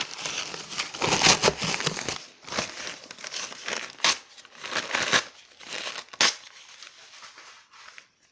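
Crinkly material, such as paper, being handled and crumpled: a string of irregular rustling, crinkling bursts, the loudest about a second in, with a couple of sharp clicks before it quiets down near the end.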